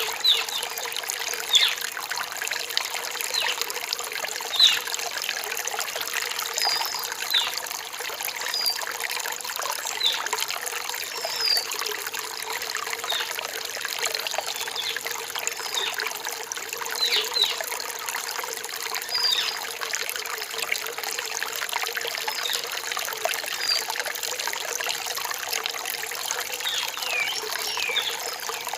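A rainforest stream trickling steadily over rocks, with short high chirps scattered throughout.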